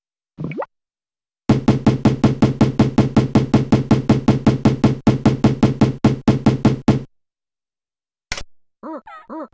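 Tux Paint's Bricks magic-tool sound effect: a rapid, even run of knocks, about seven a second, for about five and a half seconds while bricks are drawn, after a short rising blip as the tool is picked. Near the end a click and then a string of short squeaky chirps begins, the eraser tool's sound.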